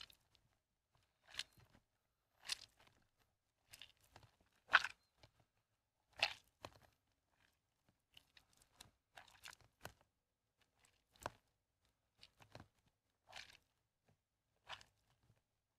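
Soaked, mushy bar soap squelching and crunching as it is squeezed and kneaded by hand in a tub of soapy water. The squishes come in short, uneven bursts about once a second, the loudest ones about five and six seconds in.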